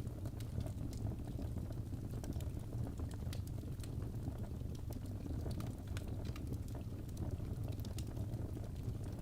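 Wood fire burning in a fireplace: a steady low rumble of the flames with frequent small, irregular crackles and pops.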